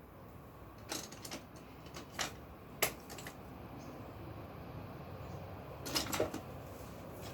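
A few short, sharp clicks and knocks at irregular intervals, with a quick cluster of them about six seconds in.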